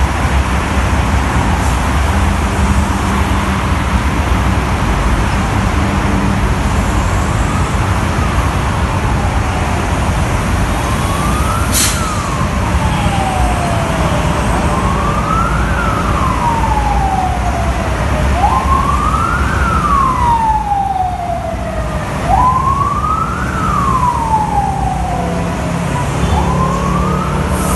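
Heavy toll-road traffic, trucks, buses and cars, rumbling steadily on wet asphalt. About a quarter of the way in, an emergency-vehicle siren starts wailing, each sweep rising quickly and falling slowly over three to four seconds, and gets louder toward the middle.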